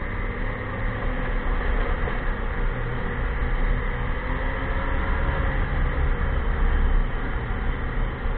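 Ski-Doo Expedition LE snowmobile riding along a packed snow trail: engine and track running steadily at speed, with a faint tone that wavers slightly in pitch over an uneven low rumble.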